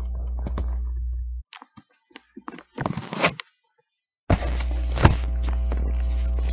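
Camera handling noise: a steady low rumble that cuts out abruptly about a second and a half in and returns abruptly a little past four seconds, with scattered clicks and knocks between as the camera is moved about.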